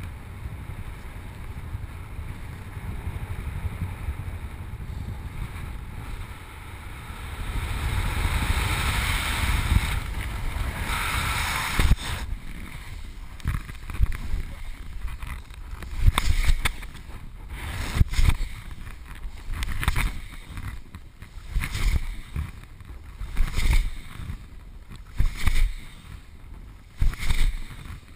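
Wind rushing over the camera microphone in flight under a paraglider: a steady rush that grows stronger about eight seconds in, then from about twelve seconds rises and falls in repeated surges every second or two as the wing swings through steep banked turns.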